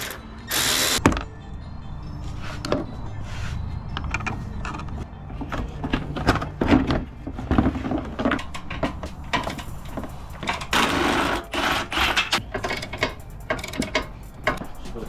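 Cordless electric ratchet running in short bursts as it spins bolts off the Jeep's stock front bumper, between irregular clicks, knocks and rattles of tools and bumper parts being handled.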